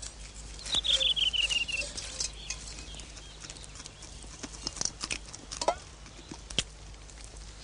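A songbird sings one quick descending trill, a rapid run of high notes falling in pitch, about a second in. A short rising call follows later. Scattered small clicks and crackles run underneath.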